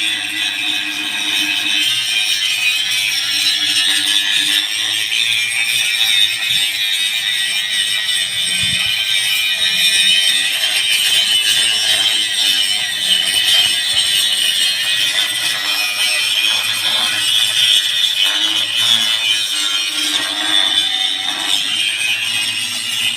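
Angle grinder grinding metal, running steadily with a high hiss and whine.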